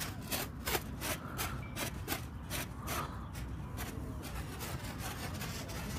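A run of quick rubbing, scraping strokes, two or three a second, growing fainter after about three seconds.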